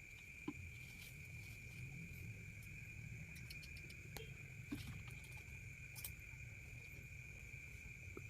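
Steady high-pitched chorus of night insects such as crickets, over a low rumble, with a few faint clicks and knocks.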